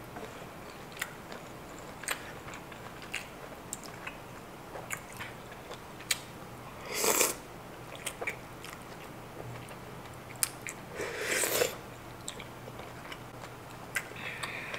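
Close-up eating sounds from creamy kimchi udon noodles: chewing with many small wet mouth clicks. Two louder slurps of noodles and sauce, about seven seconds in and again about four seconds later.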